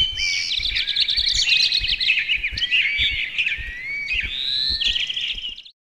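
Several birds chirping and singing at once, with quick chirps, whistled notes and short rising and falling calls overlapping, over soft low thumps. The birdsong cuts off abruptly just before the end.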